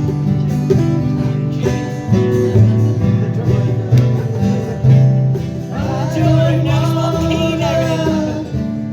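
Live country-style band playing an instrumental passage: strummed acoustic guitar over a steady bass line. A held, wavering melody line comes in about six seconds in.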